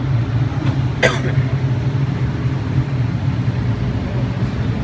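A single sharp handgun shot about a second in, over a steady low rumble.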